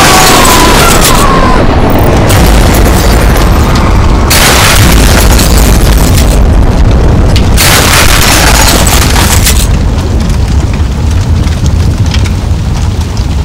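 Explosion sound effects: a blast at the start, then two more about four and seven and a half seconds in, each lasting about two seconds, over a continuous deep rumble.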